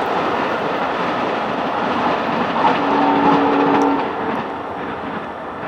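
Amtrak passenger train passing close by, a steady rumble and rattle of wheels on rail, with a short horn chord about three seconds in that lasts about a second.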